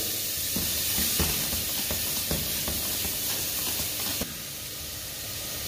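Diced onions sweating in rapeseed oil in a stainless steel saucepan: a steady, gentle sizzle with a few faint knocks. The sizzle drops a little quieter about four seconds in.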